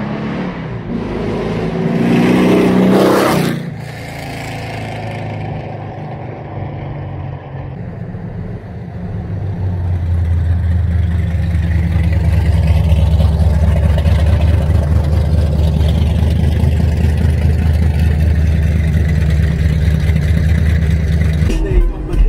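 1969 Camaro's 496 big-block V8 exhaust with the QTP Screamer muffler valves open: it revs up as the car accelerates past, loudest about three seconds in, then falls away. From about eight seconds in a louder, steady deep rumble from the exhaust holds until just before the end.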